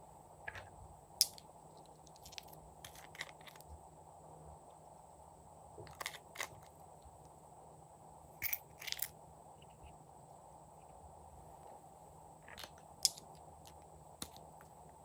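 Glossy slime being squished and stretched, giving scattered sharp clicks and pops at irregular intervals over a steady low hiss.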